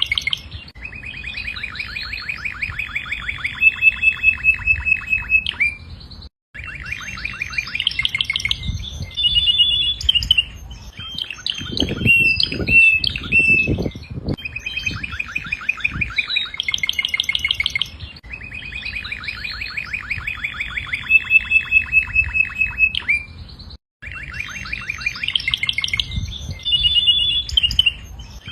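Domestic canary singing a long song of rapid trills and rolling phrases, each held for a second or two before switching to the next. The song breaks off twice for an instant, and a few low thuds come about halfway through.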